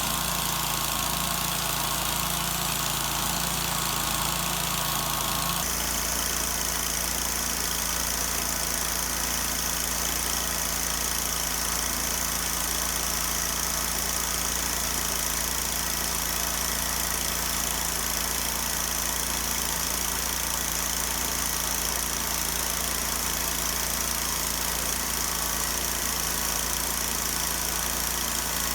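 An engine running steadily at an even speed. About six seconds in, its sound changes abruptly.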